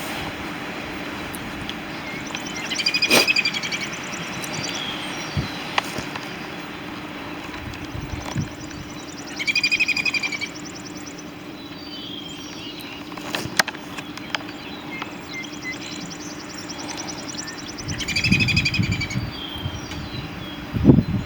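A bird giving a short buzzy, high-pitched call three times, several seconds apart, over a steady low hum.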